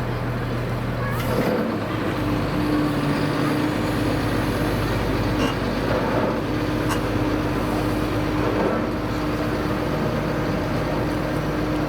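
A steady machine hum over general outdoor city noise; the hum's pitch changes about two seconds in, then holds steady.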